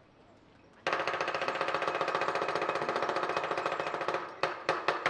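Southern lion dance percussion (drum, cymbals and gong) starts suddenly about a second in with a fast, loud roll of strokes. Near the end it breaks into a few separate accented strikes before the fast roll resumes.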